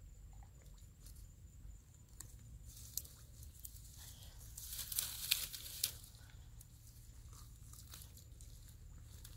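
Hands digging into a muddy bank through dry grass: crackling, crunching rustles of stems and soil, with a louder burst of crackling about five seconds in.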